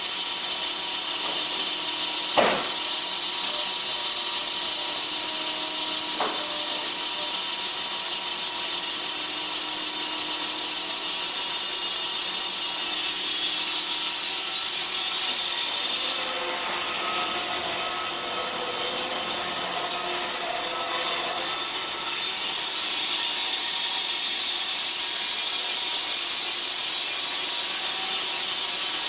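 Band saw mill running, with a loud steady high-pitched hiss. There are two short sharp sounds a few seconds in, and a rougher stretch with added tones about halfway through.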